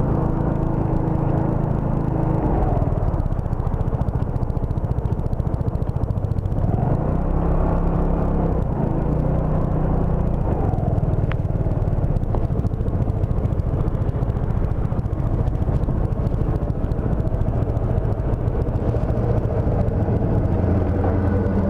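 A motor scooter's engine running steadily under way, its note dropping and rising a few times as the speed changes.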